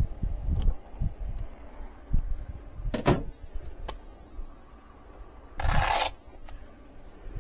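Handling noises from hand wiring work: a sharp click about three seconds in, then a short scraping rustle near six seconds.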